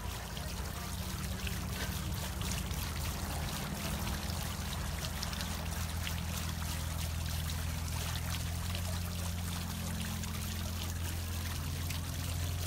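Three-tiered stone garden fountain running, its water trickling and splashing steadily from the bowls into the basin, over a steady low hum.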